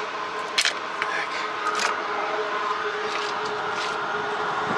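A few sharp clicks with rubbing and scraping as the cap and dipstick of a truck's power-steering fluid reservoir are handled to check the fluid level, over a steady hum.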